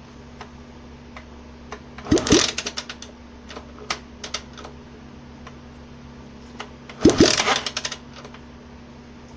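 Pushrod single-cylinder motorcycle engine kicked over twice for a spark test, each kick a thud followed by a quick run of sharp snapping clicks: the spark crackling across the gap, the sign of a good, strong spark.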